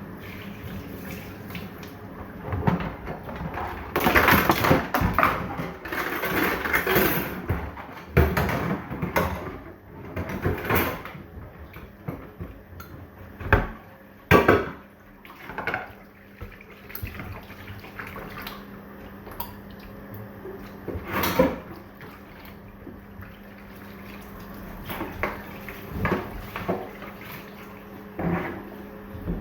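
Dishes being washed by hand at a sink: plates and cutlery clink and clatter against each other and the sink, with water running and splashing. The clatter is busiest in the first third, with one loud clank about two-thirds of the way through.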